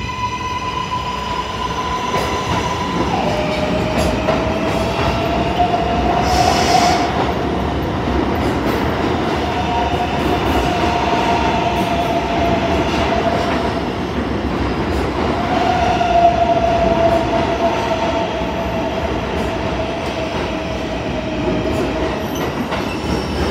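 An R142A New York City subway train moving along the station platform. Steel wheels rumble on the rails under a steady electric propulsion tone that drops in pitch about three seconds in, and wavering tones follow that sound like wheel squeal.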